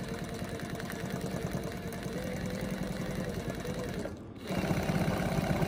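Straw hat sewing machine running at speed with a rapid, even chatter as it stitches a strip of white material. It stops briefly about four seconds in, then starts again slightly louder.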